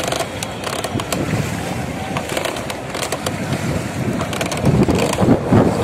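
River water splashing and lapping around a small wooden rowing boat, with wind on the microphone and scattered knocks, growing louder near the end.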